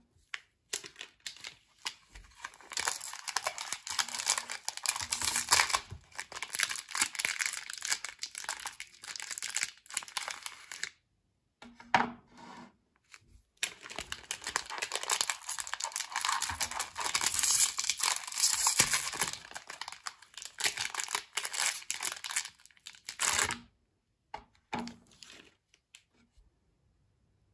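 Plastic cereal-bar wrappers crinkling and tearing as they are opened, in two long stretches of rustling with a short pause between them.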